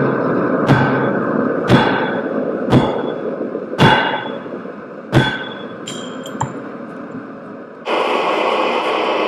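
Hand hammer striking a red-hot steel bolt on an anvil, about one blow a second, each with a short metallic ring, over a steady rushing noise. The blows stop after about five seconds, with a couple of light taps, and music comes in near the end.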